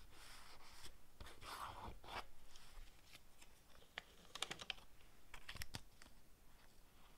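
Soft paper rustling and crinkling as small scraps of paper are handled and laid onto a journal page with tweezers. A short run of light crisp clicks and taps comes about four to five and a half seconds in.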